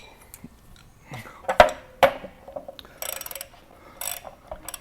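Hand tools handled: metal clinks as a 1-1/16 inch six-point socket is fitted onto a ratchet, followed by two short bursts of rapid ratchet clicking in the second half.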